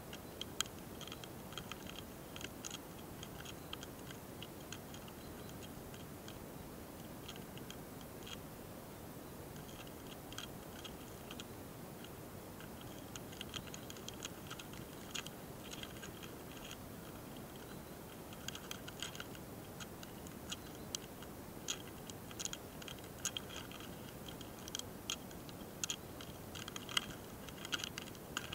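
Faint, irregular clicking and scratching from a mating pair of ホソトラカミキリ longhorn beetles moving on a branch, the ticks coming in short clusters and growing busier in the second half, over a steady low hiss.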